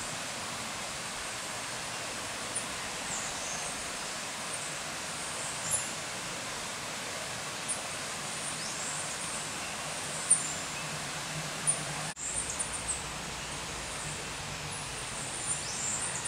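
Forest ambience: a steady hiss with scattered short, high-pitched chirps and a few quick falling whistles from small animals, and a brief dropout about twelve seconds in.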